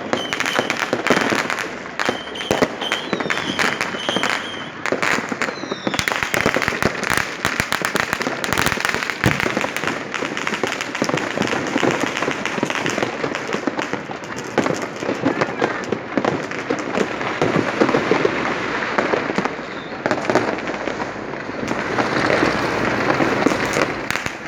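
Dense, continuous New Year fireworks and firecrackers going off all around: rapid overlapping bangs and crackling with no pause. In the first few seconds high whistling tones, typical of whistling rockets, sound over the bangs.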